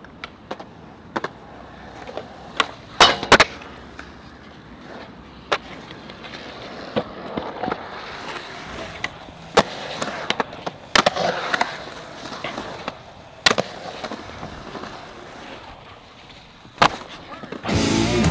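Skateboard urethane wheels rolling on smooth concrete, swelling as the rider carves the bowl, with a series of sharp clacks and knocks from the board hitting the concrete. Rock music cuts in just before the end.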